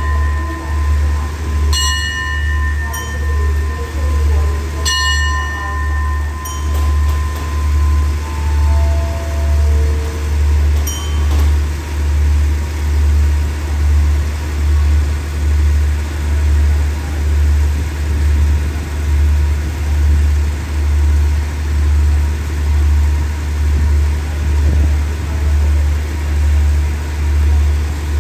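A station platform bell struck about four times in the first five seconds, its ringing fading out by about eight seconds, over the steady low, slowly pulsing hum of the standing passenger train's idling diesel engine.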